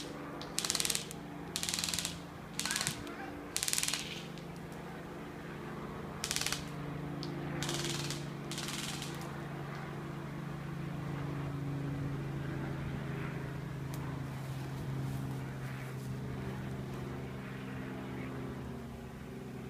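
Airsoft electric rifles firing short full-auto bursts, about eight quick rattles in the first nine seconds, five of them close together at the start. A steady low hum runs underneath throughout.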